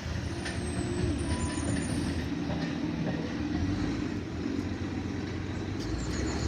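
Garbage truck running close by: a steady low engine rumble, with a faint high squeal in the first couple of seconds.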